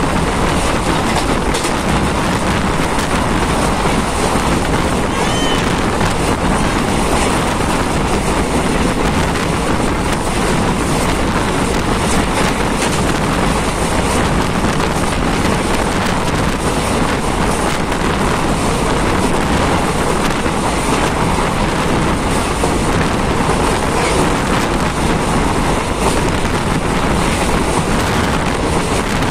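Steady road and wind noise from a moving vehicle, with wind rushing over the microphone.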